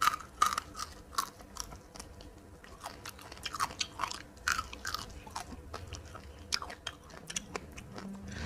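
A person chewing crunchy food up close, with irregular crunches and clicks that come thickest in the first half.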